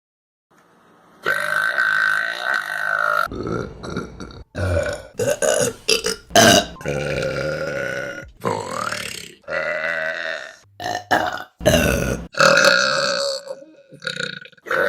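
A rapid string of women's burps from one clip after another, some long and drawn out, some short, spliced together with abrupt cuts. They start about a second in.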